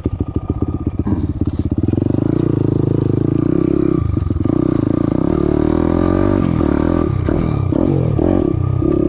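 Daytona 190 cc four-valve single-cylinder pit bike engine pulling away from low revs, then revving up and down under riding, with repeated drops in revs in the second half as the throttle is eased and opened again.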